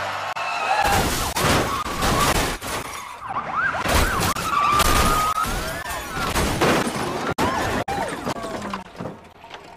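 A car crash in a film soundtrack: repeated heavy impacts of crunching metal and shattering glass, with police sirens wailing between the hits.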